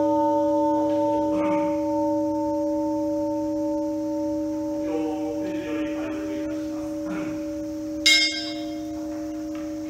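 Large Buddhist bowl bell (kin) ringing out after a single strike, a long, slowly fading hum of a few steady tones. About eight seconds in, a brief, brighter metallic ring.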